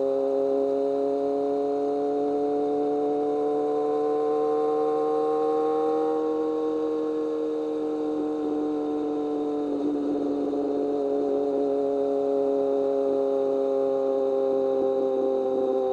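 BMW K1200R's inline-four engine pulling at a steady cruise, its exhaust note an even, smooth tone. The pitch rises slightly over the first few seconds, dips briefly about ten seconds in, then climbs back.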